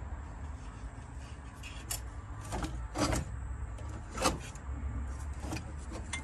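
Hands working small plastic bulb holders and wiring at the back of a car's instrument panel: scattered clicks and knocks, the sharpest about three and four seconds in, over a low steady rumble.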